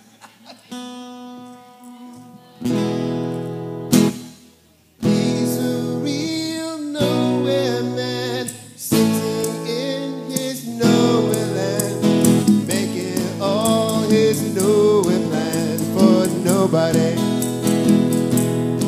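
Acoustic guitar: a few chords strummed and left to ring, then a steady strum from about eleven seconds in. A man sings over it from about five or six seconds in.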